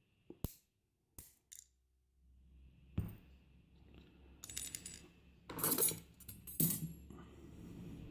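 Small metal parts clicking and clinking as the retaining clip is worked off an Evva EPS euro cylinder with a tool. There are a few sharp clicks at first, a knock about three seconds in, then two louder metallic rattles near the end.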